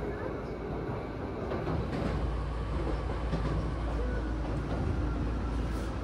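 Train running on its rails, heard from inside the carriage: a steady low rumble that grows heavier about two seconds in.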